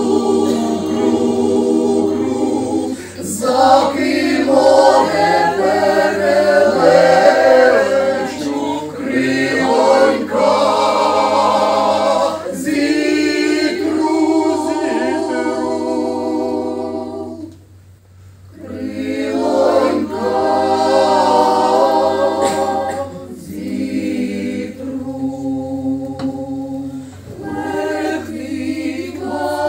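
Mixed choir of women's and men's voices singing unaccompanied, in sustained chords, with one short break between phrases partway through.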